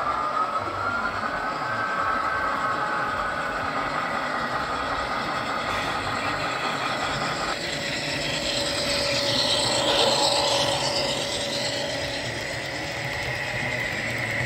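Model railroad turntable rotating under its motor drive: a steady mechanical whine and hum with tones that slowly shift in pitch. One tone cuts off about halfway through.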